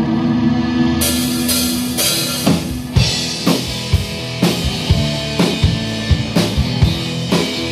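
Live rock band playing electric guitars, electric bass and drum kit. A held chord opens, cymbal strokes come in about a second in, and a steady drum beat of about two strokes a second takes over from about three seconds in.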